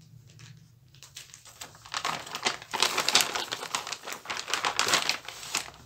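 Clear plastic wrapper crinkling as a drawing book in it is picked up and handled: a dense run of crackles starting about two seconds in and lasting about three and a half seconds.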